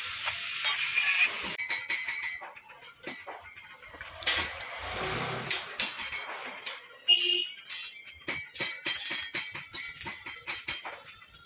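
Small metallic clicks and clinks of hand tools and loose engine parts being handled at a Bajaj Platina 100cc motorcycle engine's cylinder head as its covers and bolts come off, with a short rush of noise about four seconds in.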